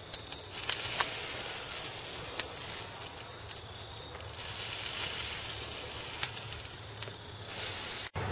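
Charcoal grill cooking beer can chickens: a steady sizzling hiss with scattered sharp crackles and pops from the fire and dripping fat. It cuts off abruptly near the end.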